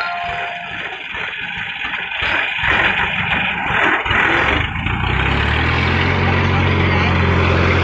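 An engine running, uneven and noisy for the first few seconds, then settling about halfway in into a steady low hum.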